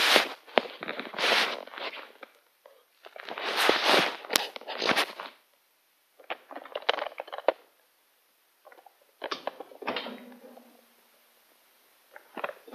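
Fabric rustling and handling noise as a device is moved about among blankets, in irregular bursts with a few sharp clicks and short pauses between.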